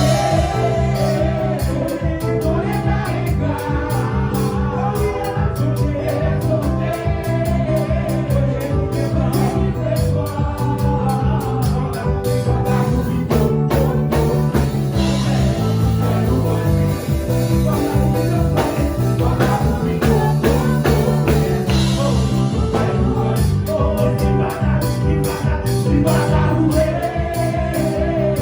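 Gospel praise music: voices singing over a band with a steady, quick percussion beat and a repeating bass line.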